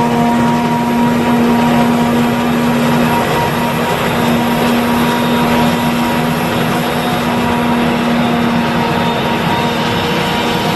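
Claas Jaguar 950 forage harvester chopping maize under load and blowing the chopped crop into a forage wagon: a steady loud machine drone with a constant whine over it.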